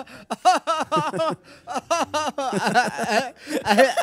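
A man laughing hard into a handheld microphone: a long run of short "ha" pulses, with a brief pause about a second and a half in.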